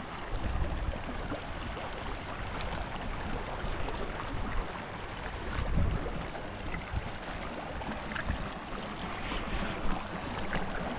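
Shallow stream running and rippling over rocks, with wind buffeting the microphone in uneven low rumbles, strongest about a second in and near the six-second mark.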